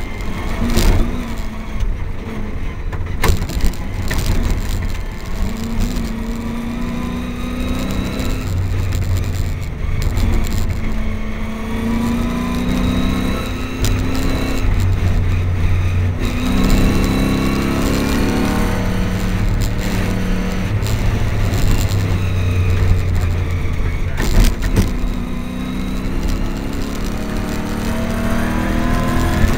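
Nissan GU Patrol rally truck's engine heard from inside the cab while driving hard on a dirt track. Its pitch climbs and drops back several times, and a few sharp knocks and jolts come from the rough ground.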